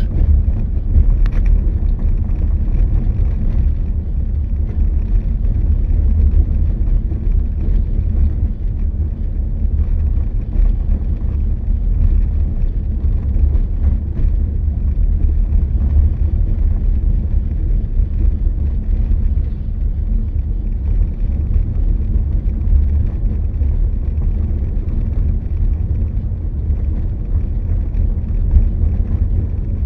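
Steady low rumble of wind buffeting the microphone, mixed with road noise, from a vehicle moving along a road.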